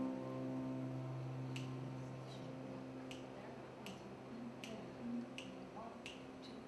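A low held note rings out and slowly fades while finger snaps keep a slow, steady beat of about one every three-quarters of a second, starting about a second and a half in, setting the tempo before the song begins.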